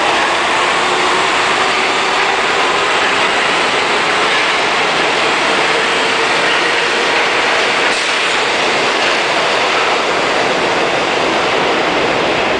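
New York City subway train running through an underground station: a loud, steady rush and rumble of wheels on rail, with faint whining tones over it.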